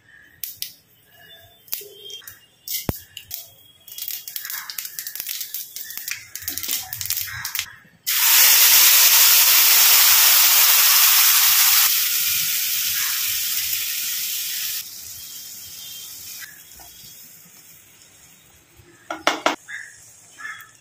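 Mustard seeds crackling and popping in hot oil. About eight seconds in comes a sudden loud sizzle as the ground tomato and green chili paste hits the hot oil; the sizzle eases off in steps and settles to a quieter simmer.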